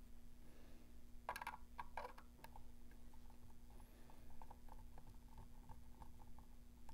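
Faint clicks and small scraping ticks of a screwdriver turning a terminal-block screw down onto a wire, with a few sharper clicks between one and two and a half seconds in. A steady low hum runs underneath.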